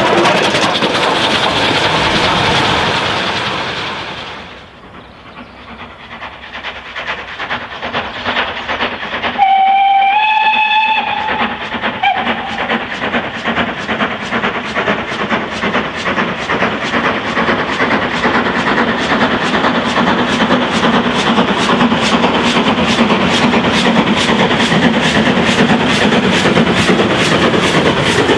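A steam locomotive running close past and fading away. Then LMS 4F 0-6-0 No. 44422 approaches under steam and sounds its whistle once for about a second and a half, followed by a short toot. Its quick, even beats grow louder as it draws near.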